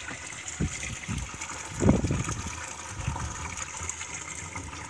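Water running and trickling through a wooden rice field trunk in a dike, a steady rushing. A few low thumps sound over it, the loudest about two seconds in.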